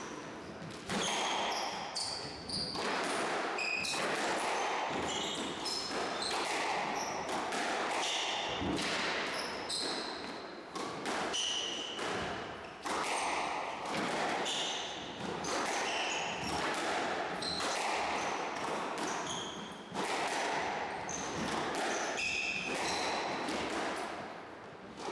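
Squash ball hitting rackets and the court walls in a run of sharp knocks about a second apart, with rubber-soled shoes squeaking briefly on the wooden court floor between shots.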